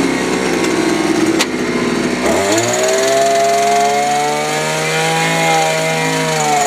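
Small gasoline engine running at low speed, then revving up about two seconds in and holding at high speed until it starts to drop near the end.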